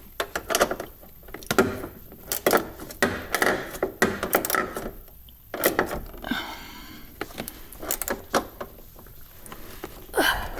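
Hand ratchet clicking and a 10 mm socket knocking on metal, in irregular short runs with pauses, as a loose fastener on a car door is tightened.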